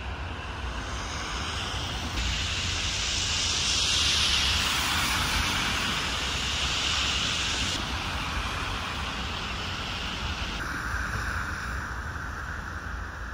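Steady outdoor street ambience: a low hum of traffic with a hiss of wind noise over it, its tone changing abruptly a few times.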